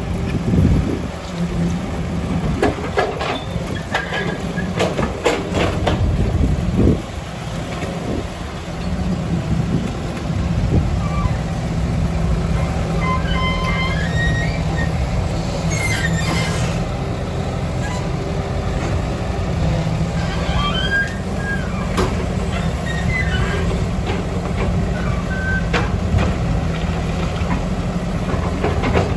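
Diesel engine of an old Cat hydraulic tracked excavator running steadily under load as it digs wet mud and swings to load a dump truck, with several knocks and clanks in the first seven seconds.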